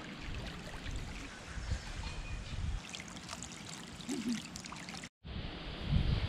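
Swimming-pool water running and splashing, with small trickles and light splashes. The sound drops out for a moment about five seconds in.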